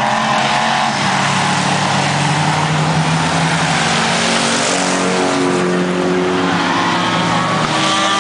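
Several V8 enduro stock cars racing around a paved oval. Their engines overlap, and the pitches rise and fall as cars pass close by.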